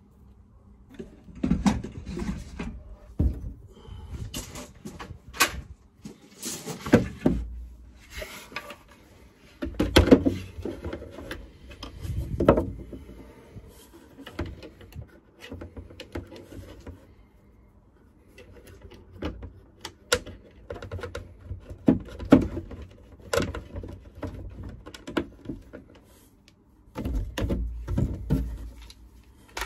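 Irregular knocks, clunks and scrapes of a plywood panel and metal hinge being handled and fitted against the side of an aluminium drawer.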